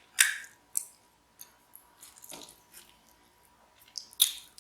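Close-miked mouth sounds of someone eating a mouthful of cheesy baked macaroni and cheese: a few sharp wet smacks and clicks between quiet chewing, the loudest just after the start and again near the end.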